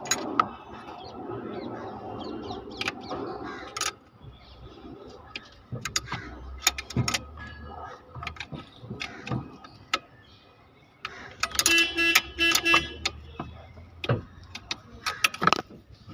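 Workshop sounds of a steering column being refitted: repeated metal clinks and knocks of parts and tools, irregular throughout. About twelve seconds in comes a brief, louder, pulsing pitched tone.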